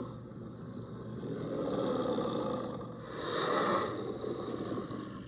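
Movie sound effect of the runaway locomotive 777's diesel engine growling and snarling. It comes in rising and falling swells over a steady low hum, with the strongest surge about three seconds in.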